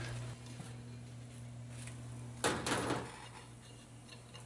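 Cast iron Dutch oven and its metal lid lifter knocking on a stainless steel table: a short clatter of metal knocks about halfway through.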